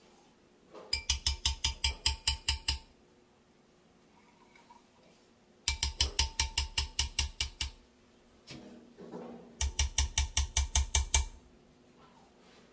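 A metal spoon clattering rapidly against the inside of a tin can to scrape out thick condensed milk. It comes in three bursts of quick strokes, about six a second, near the start, in the middle and near the end.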